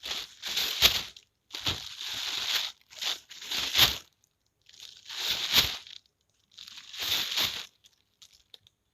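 Plastic bag being shaken and flapped, crinkling in about six bursts with short pauses between them, ending in a few faint crackles.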